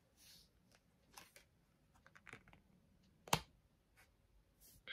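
Faint rustle and soft clicks of tarot cards being handled, with one sharper tap a little over three seconds in as a card is laid down on the spread.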